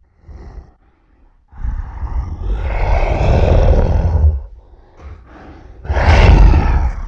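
Zilla Junior monster roar sound effects: a brief faint cry, then a long loud roar of about three seconds, and a second shorter loud roar near the end.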